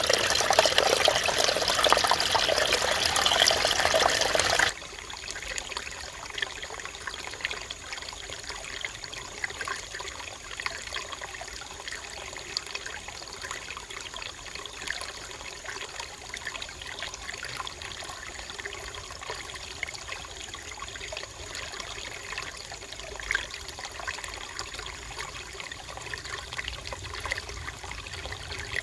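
Mountain stream water flowing and trickling over rocks. The rushing is loud for the first few seconds, then cuts off suddenly to a quieter, steady trickle.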